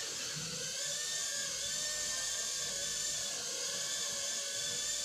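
Small toy quadcopter drone's four propeller motors whining steadily in flight.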